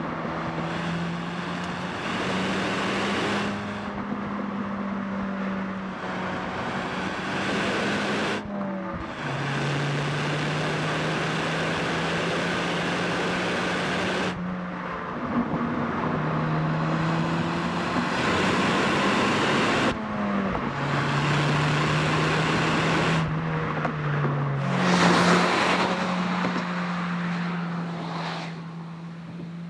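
Ford Fiesta ST's turbocharged four-cylinder engine running on the road, with a steady engine note held for several seconds at a time. The pitch jumps up or down between several short edited takes, with a louder surge about five seconds before the end.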